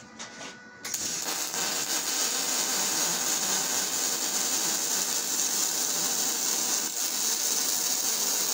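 Aluminum MIG welding with a spool gun under argon shielding gas: the arc strikes about a second in and then runs as a steady, hissing crackle.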